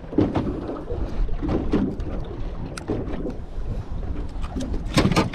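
Small aluminium boat rocking at rest, water slapping against the hull, with wind on the microphone. Scattered knocks, and a louder one about five seconds in.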